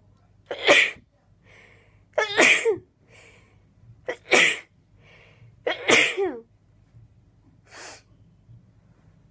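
A person sneezing four times in quick succession, about every one and a half to two seconds, with a short intake of breath before each sneeze, in a rapid sneezing fit. A softer breath follows near the end.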